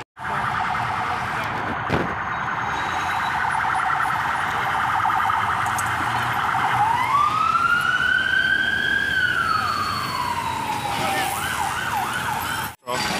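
Police van siren: a fast warble for about six seconds, then a slow wail that rises and falls, and a few quick yelps before it cuts off near the end. Traffic noise runs underneath.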